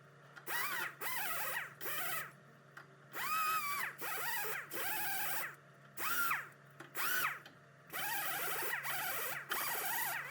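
Sandpaper or emery cloth rubbed back and forth on a metal brake part to clean off rust, in a series of separate strokes about once a second, each with a squeaky rise and fall in pitch.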